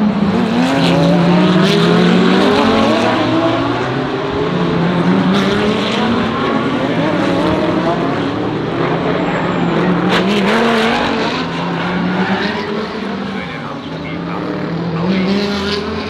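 Several GT3 race car engines running hard, overlapping, their pitch climbing through the gears and falling again. A few sharp cracks cut through, the strongest about ten seconds in.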